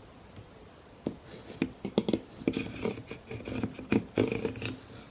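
Pencil scratching along the edge of bent plywood in short, uneven strokes while tracing its curve, with light knocks and rubbing from handling the wood.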